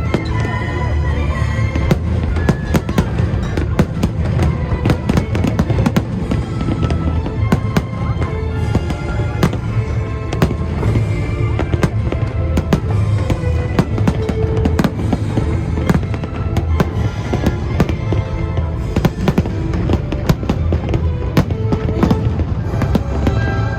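Fireworks display: a dense, unbroken run of bangs and crackling bursts, over the orchestral-style music that accompanies the show.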